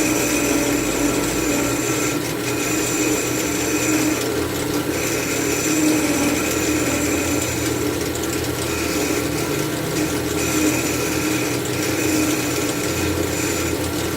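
Wood lathe running with a steady motor hum while a turning tool works the thin, spinning cherry workpiece. The cutting noise comes and goes in passes of one to two seconds with short gaps between them.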